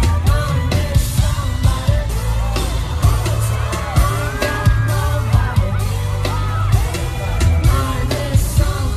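Live pop music through a concert PA: a singing voice over a heavy bass line and drum hits, with some yells and whoops from the audience.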